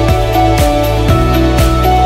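Background music with a steady beat of about two hits a second under held notes and a bass line.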